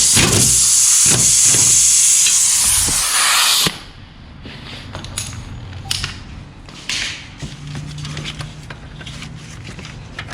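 Loud steady hiss that cuts off suddenly nearly four seconds in, followed by quieter scattered clicks and knocks.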